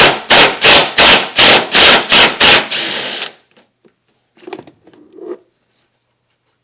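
Ratchet wrench working a 10 mm bolt loose: a loud, even run of clicking strokes, about three a second, that stops about three seconds in, followed by a few faint handling sounds.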